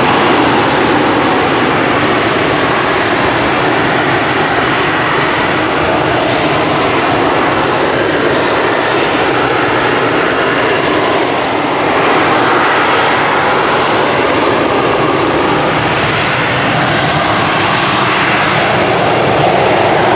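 AV-8B Harrier II's Rolls-Royce Pegasus vectored-thrust turbofan running at hover thrust: loud, steady jet noise with no break, dipping slightly about halfway through and swelling a little near the end.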